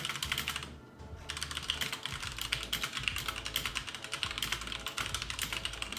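Fast typing on a HyperX Alloy FPS Pro TKL mechanical keyboard with Cherry MX Red switches: a quick, continuous clatter of keystrokes, with a short pause about a second in.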